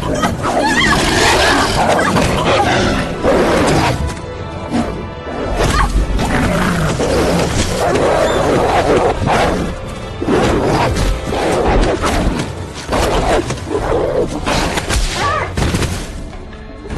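Film soundtrack of a wolf fight: music over wolves snarling, with heavy thuds and impacts.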